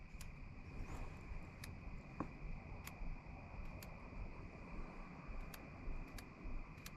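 Night insects chirring in a steady, high-pitched chorus, with a few faint sharp clicks scattered through.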